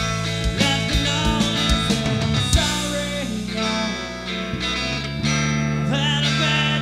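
Live rock band playing: distorted electric guitar and bass over a drum kit. The drum hits are dense at first and thin out about halfway through while the guitars ring on.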